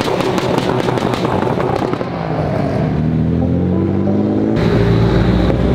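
Nissan Skyline R32s driving past and accelerating. A rough, crackly engine rumble is followed from about two seconds in by an engine note rising in pitch as it revs up.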